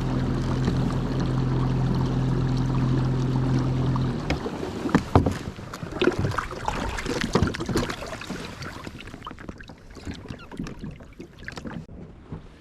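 A motor hums steadily, then cuts off suddenly about four seconds in, followed by a run of knocks and clatter that gradually die down.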